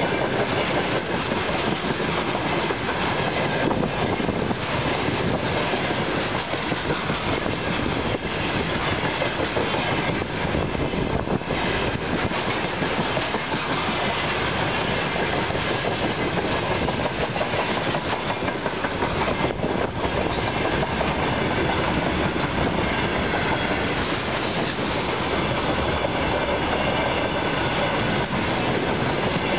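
Freight train wagons (hopper cars, gondolas and tank cars) rolling past close by: a steady, loud rumble of steel wheels on rail, with the clack of wheels over rail joints.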